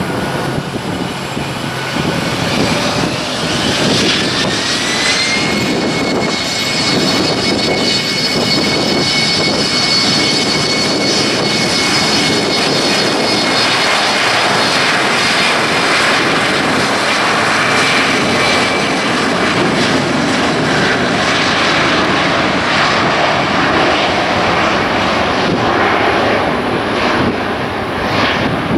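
Turbofan engines of a FedEx MD-10-30 jet freighter spooling up: a whine rises in pitch for about three seconds, then holds steady over a loud roar as the engines run at high thrust.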